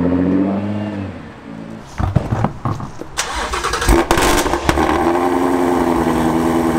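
Nissan GT-R R35 engine falling in pitch as it settles toward idle over the first second or so. A few knocks and clunks follow. Then, from about five seconds in, the 5.2-litre V8 of a Ford Mustang Shelby GT350R idles steadily, so loud that people can't hear each other over it.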